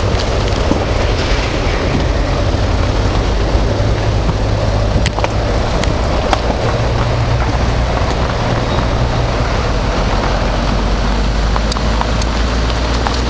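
Nissan Qashqai driving along a gravel track: a steady, loud rumble of tyres on gravel and road noise, with a few sharp ticks heard about five to six seconds in and again near the end.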